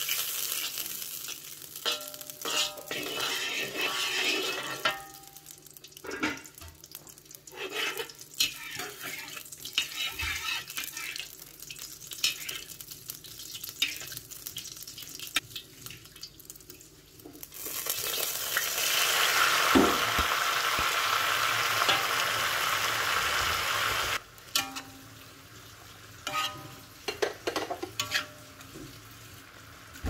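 A metal ladle scraping and clinking against a wok while oil sizzles. Midway, a louder steady sizzle lasts several seconds and cuts off sharply.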